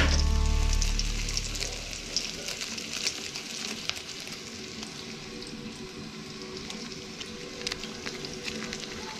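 Food sizzling and crackling as it fries in hot oil in a pan. Background music fades out over the first two seconds.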